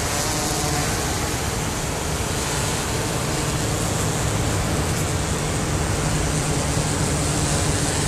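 Steady roar of heavy surf, a dense, even rush of noise that holds without letting up.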